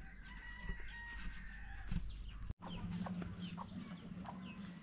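Chickens calling. After a cut about halfway through there is a quick run of short, high, falling peeps, two or three a second, over a steady low hum.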